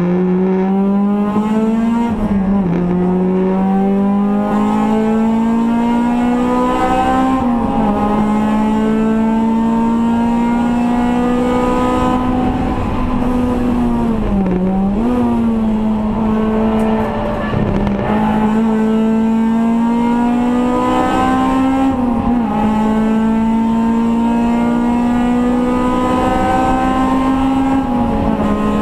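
Race car engine heard from inside the stripped cabin, running hard under load. Its pitch climbs slowly, with about five short dips where the note drops and recovers.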